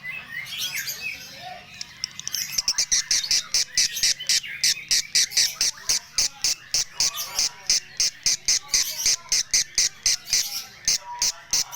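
Lovebird of the 'konslet' type, kept for its odd voice, calling. After about two seconds of softer chirps it breaks into a long, fast series of sharp, high chirps, about four or five a second.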